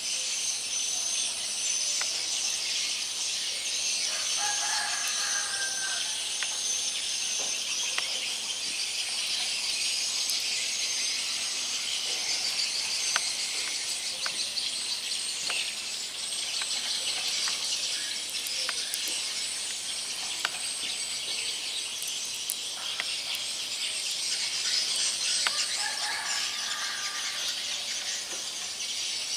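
Steady, high-pitched insect chorus, with a bird calling twice: a few seconds in and again near the end.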